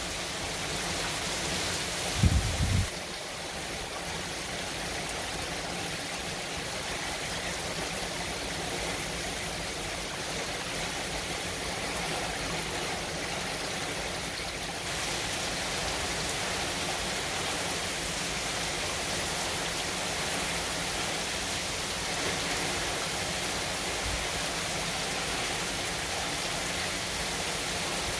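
Hurricane downpour: heavy rain falling steadily as a dense hiss on pavement and lawn. A brief low rumble comes about two to three seconds in.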